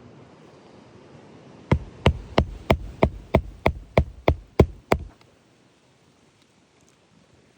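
Hammer driving a roofing nail into the decking under a lifted shingle: a quick, even run of about eleven sharp blows, about three a second, ending about five seconds in.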